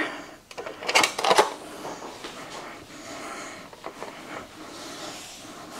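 Kitchen utensils handled: a few quick clinks and knocks of a spoon against a dish about a second in, then quiet handling with a few faint ticks.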